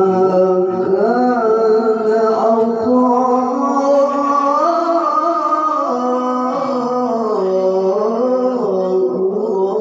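A man's voice chanting a Qur'an recitation melodically through a microphone: one long unbroken phrase of held, ornamented notes that climbs in pitch around the middle and settles back down, breaking off near the end.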